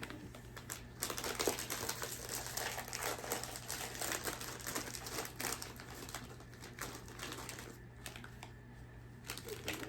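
Crinkly snack packet being opened and rummaged in, a dense crackle of plastic for about five seconds that thins out to lighter handling.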